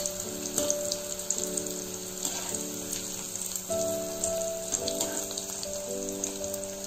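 Oil sizzling and crackling steadily around pappad samosas deep-frying on low flame. Soft background music with slow held notes plays underneath.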